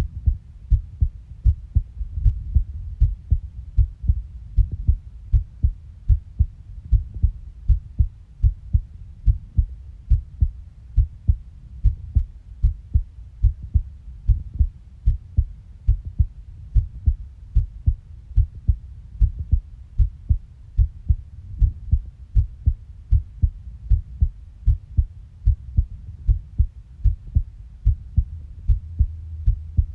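Heartbeat recorded up close: steady, regular low-pitched thuds, about two a second.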